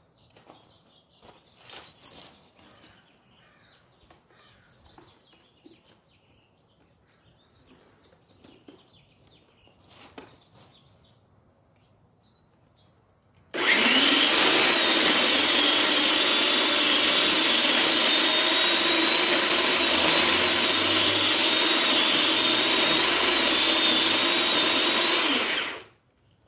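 Electric saw running steadily at an even pitch, cutting into the trunk of an Asian pear tree; it starts abruptly about halfway through, runs for about twelve seconds and stops shortly before the end. Before it there are only faint clicks and rustles of handling.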